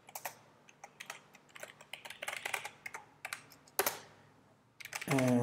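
Typing on a computer keyboard: a run of irregular key clicks, with one louder click almost four seconds in. A voice begins just before the end.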